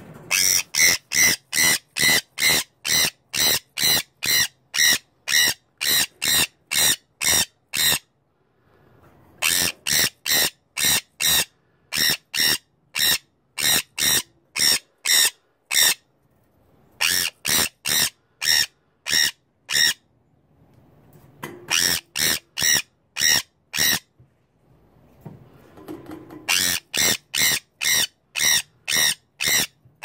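Sun conure screeching: shrill, harsh calls repeated evenly about two or three times a second, in five long bouts broken by short pauses.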